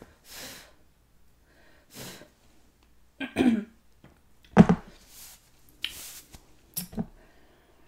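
Close-up eating and breathing sounds: short sniffs and breaths, a brief low murmur, and a few sharp cracks and taps as snow crab legs are handled. The loudest crack comes a little past halfway.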